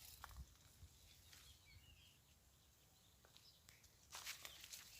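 Faint bird chirps over near silence. About four seconds in comes a short burst of rustling and crunching.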